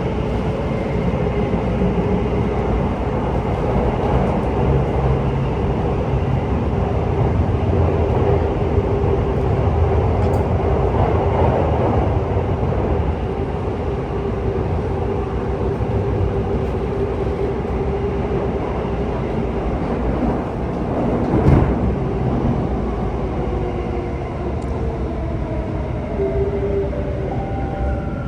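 Alstom C951 metro train running, heard from inside the car: a steady rumble with a held motor whine, a single sharp knock about two-thirds of the way through, and the motor tones falling in pitch near the end as the train slows.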